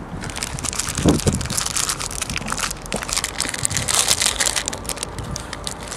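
Close-up biting and chewing of a caramel chocolate bar: a dense, crackly run of crunches right at the mouth.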